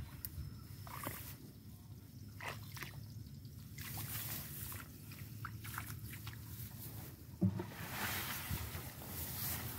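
Hands groping in a wet, muddy crab burrow: small squelches and sloshes of mud and water, with one louder thump about seven and a half seconds in and a longer rustle near the end.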